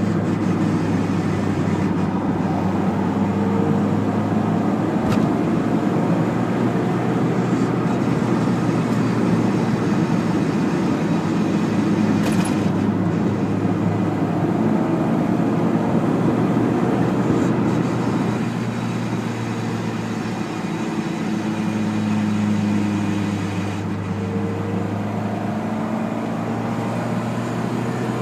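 Mazda MX-5 running with a steady engine and drivetrain drone, with slowly shifting tones as it slows. This is the noise it makes on deceleration that appeared after its clutch was replaced.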